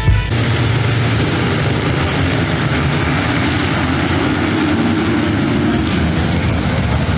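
Many motocross bikes running at high revs together as a pack charges off the start line, a dense, steady engine noise.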